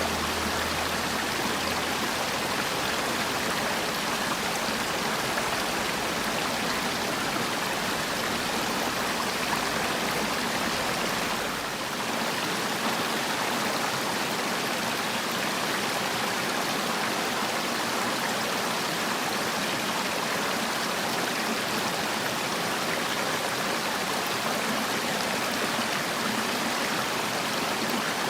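Mountain valley stream flowing, a steady rushing of water.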